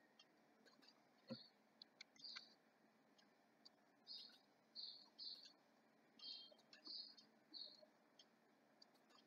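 Faint computer mouse clicks while a layout is being wired, with faint short high bird chirps repeating in the background.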